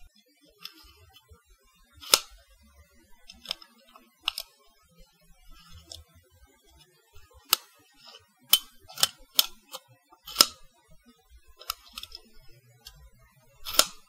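Tape measure clicking and snapping: about ten sharp metallic clicks at irregular intervals, some close together, with a few short, softer rattles in between.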